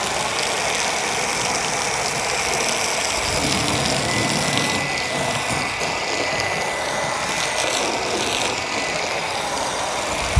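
Steady spray of a SwiftJet hose-end foam gun, a jet of soapy water and foam from a garden hose splattering against a car's door and body panels.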